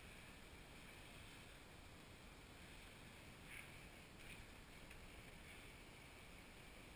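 Near silence: a faint, steady swish of a flat mop pad gliding over wooden floorboards, with a cat riding on it.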